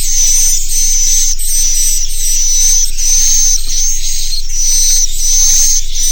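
Swiftlet roosting lure call ("suara inap"), a recording of edible-nest swiftlet chirping played to get young swiftlets to settle and roost in a swiftlet house. Short high-pitched chirps repeat about one and a half times a second over a steady low hum.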